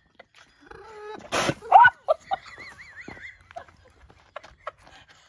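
Llama spitting at close range: a short, loud hissing burst about a second and a half in. Right after it comes a high gliding cry and a wavering whistle-like tone, then a few small clicks.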